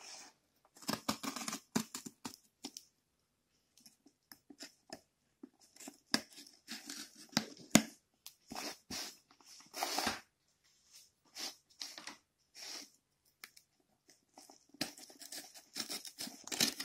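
Cardboard shipping box being handled and torn at: short, irregular rips, scrapes and knocks of cardboard and packing tape.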